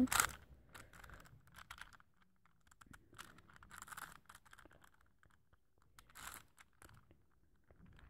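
Plastic Rubik's cube being turned by hand close to the microphone: a run of short clicks and scrapes as the layers rotate.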